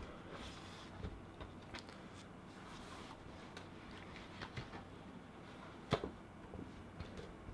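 Quiet room tone with a few faint clicks and rustles, and one sharper click about six seconds in.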